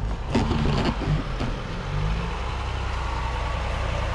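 Engines of 4x4 vehicles running as they drive slowly over a dirt track, a steady low hum.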